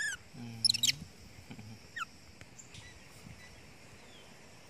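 Baby macaque giving a few short, high-pitched squeals in the first second, then one faint squeak about two seconds in.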